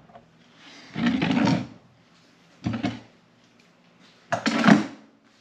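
A small flux-core welder being turned and shifted on a work surface: three scraping handling noises, the last one the loudest.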